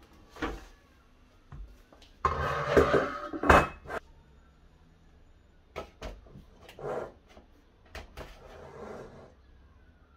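Kitchen handling noises: a series of knocks and clicks as things are moved about at the counter, with a louder clattering stretch about two to three and a half seconds in.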